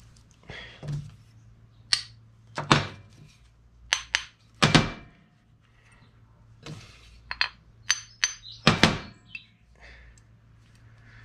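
Steel parts of a Mini Spares molybdenum cross-pin differential knocking and clinking as the case is handled and its thrust block is adjusted so the cross pin will slide in. About nine sharp knocks come at irregular intervals, some with a short metallic ring; the loudest are about five seconds in and about nine seconds in.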